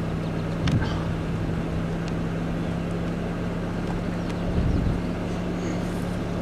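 Car engine idling, a steady low hum heard from inside the car, with a short knock about a second in and a few soft thumps a little past the middle.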